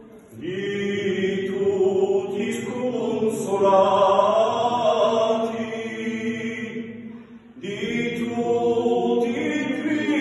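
A small group of men singing an unaccompanied Corsican-style polyphonic sacred chant, several voices holding long chords in a reverberant church. They stop briefly for breath about seven and a half seconds in, then begin the next phrase.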